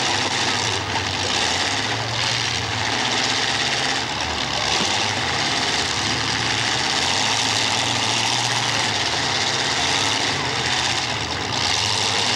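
Race car engines running together in a feature race, a steady, dense blend of engine noise with no single car standing out.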